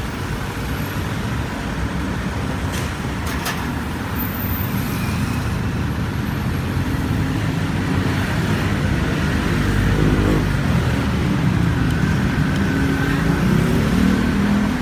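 Steady low rumble of motor traffic, with a vehicle engine growing louder about two thirds in. A couple of faint clicks about three seconds in.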